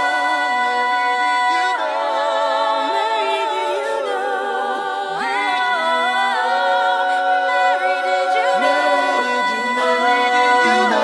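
A cappella vocal group singing held chords without words, the voices wavering with vibrato and the harmony moving to a new chord every few seconds.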